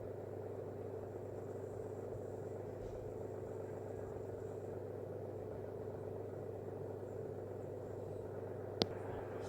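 Steady low hum and rumble of running machinery or room background, with one sharp click near the end.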